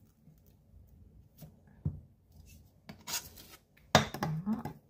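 Kitchen knife scraping and tapping on a wooden cutting board, with a few light knocks. Near the end comes a sharper knock and scrape as the blade is brought to a glass measuring jug.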